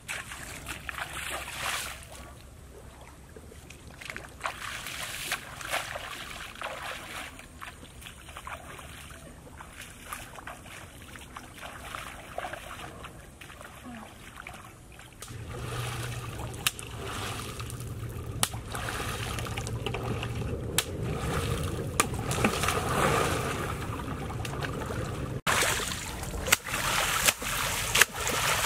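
Water sloshing as someone wades in shallow river water, then hard splashing near the end as hands thrash and dig in the muddy water at the bank.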